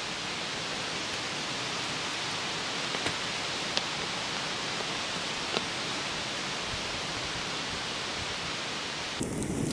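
Steady even hiss of outdoor background noise, with a few faint crackling ticks from the wood fire burning under the cast-iron Dutch oven.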